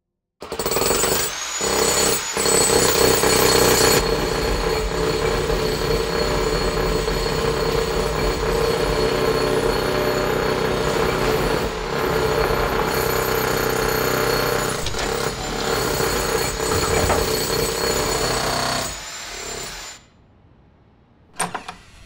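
Jackhammer hammering loud and continuously. It cuts in suddenly just after the start, then falls away and stops near the end. A few sharp knocks follow.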